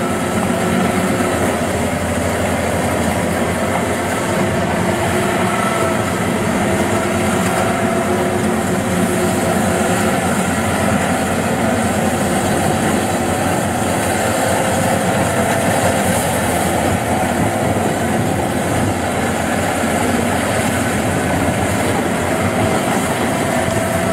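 Kubota DC-93 rice combine harvester working: its diesel engine and cutting and threshing machinery running steadily as it cuts through the standing rice, a dense mechanical drone with a faint steady whine.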